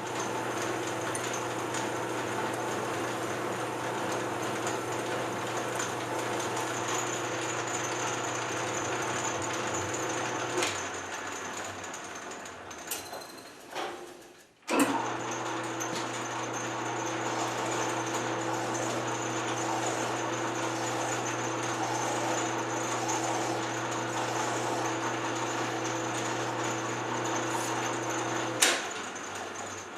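Electric machine-tool motor running at steady speed with a steady hum and a high whine; about eleven seconds in it winds down, it starts again with a sharp click about fifteen seconds in, runs steadily, and stops after another sharp click near the end.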